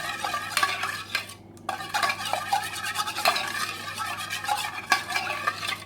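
Stirring a cold mixture of sugar, water, ground ginger, cloves, lemon juice and honey in a pot, the utensil scraping and clinking against the pot, with a short pause about one and a half seconds in.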